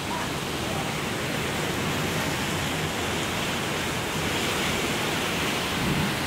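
Strong storm wind blowing steadily: a continuous rushing noise that buffets the microphone, swelling slightly near the end.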